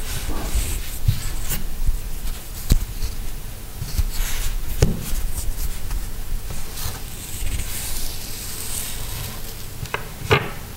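Close-up handling of a button and thin string: fingers rubbing and rustling as the string is threaded through the button, with scattered small clicks, a sharp one about three seconds in and a cluster near the end as the string is laid on the tabletop.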